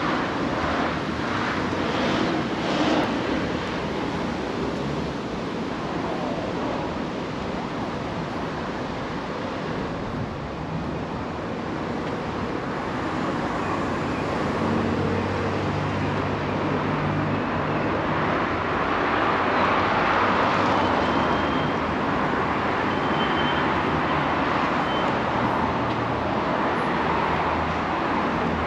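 City street traffic: steady road noise from passing cars, with a low engine hum near the middle and a vehicle passing close and loudest about two-thirds of the way through.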